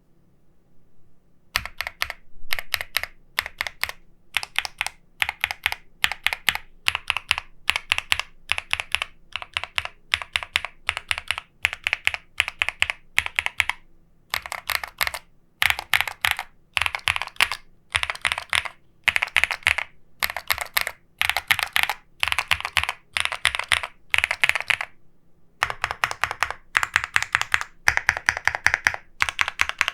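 Typing on an EPOMAKER P75 mechanical keyboard: fast runs of key strokes in bursts, with brief pauses about halfway and near the end.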